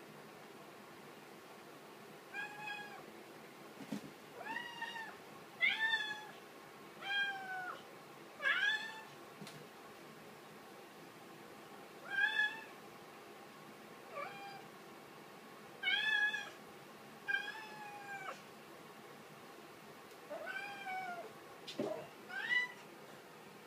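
A young domestic cat meowing over and over: about a dozen short meows, each rising and then falling in pitch, beginning a couple of seconds in and coming every second or two.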